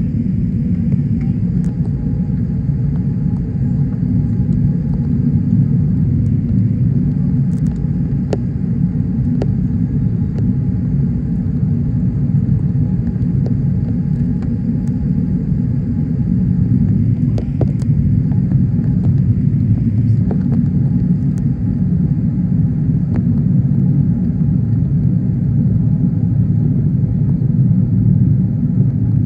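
Steady low rumble of an Airbus A380's Rolls-Royce Trent 900 engines and rushing air, heard inside the passenger cabin during the climb after takeoff.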